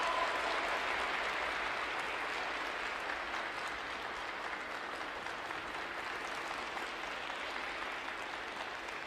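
Audience applauding, a steady wash of clapping that slowly fades. The last note of the skaters' music dies away just at the start.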